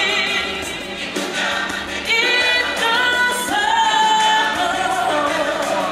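Stage show music with a choir singing long held notes; about three and a half seconds in, a strong voice line comes in, wavering and gliding in pitch.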